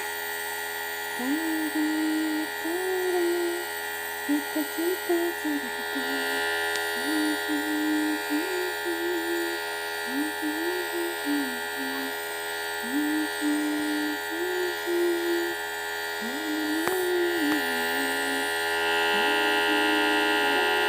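Electric nebulizer running for a child's inhalation, a steady buzzing hum that grows a little louder near the end. Over it a voice hums short rising, held notes on and off.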